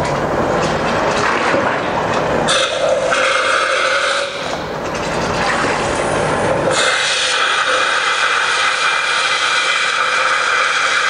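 Peracetic acid sanitiser forced by CO2 pressure out through a beer keg's fitting valve, spraying and hissing in bursts. The valve is being flushed of leftover beer and infection. There is a lull in the middle and a steadier hiss over the last few seconds.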